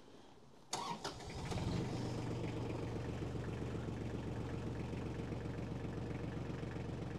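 Iseki TH4335 compact tractor's diesel engine cranked on the starter about a second in, catching within a second and settling into a steady idle.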